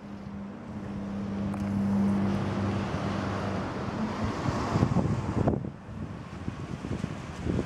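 Light propeller aeroplane flying low overhead: a steady droning engine and propeller hum with a louder rushing noise that builds over the first few seconds, then drops away suddenly about five and a half seconds in. Wind buffets the microphone, most of all near the end.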